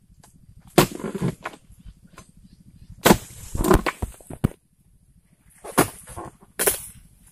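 Sharp chopping strikes of a pole-mounted harvesting blade cutting into the frond bases of an oil palm, about five strikes spread a second or more apart, some followed by a brief rustle.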